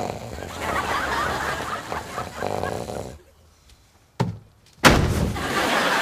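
Loud snoring by a sleeping man: a long snore of about three seconds, a short one about four seconds in, then another long snore near the end.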